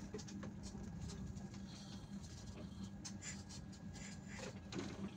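Bus engine running with a steady low drone, heard from inside the driver's cab, with a few faint clicks and rattles.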